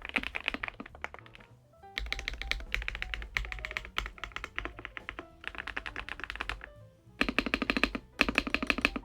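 Rapid typing on a Kzzi K98 mechanical keyboard with PBT keycaps: fast runs of key clacks in bursts of a second or two, with short pauses between them, over background music.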